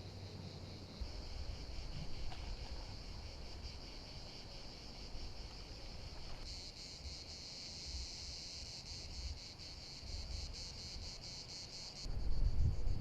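Insects chirring in a steady high, rapidly pulsing buzz, with a low rumble of wind on the microphone. The buzz grows louder and brighter about six and a half seconds in and drops back about twelve seconds in, where the low rumble swells.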